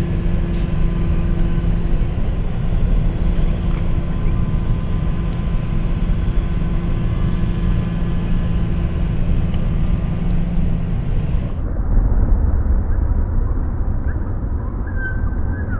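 Cement-factory machinery drone from a reel-to-reel field recording, played back pitched down at reduced tape speed: a steady low hum with several held tones over noise. About eleven and a half seconds in, the sound drops lower and duller, as if slowed down further.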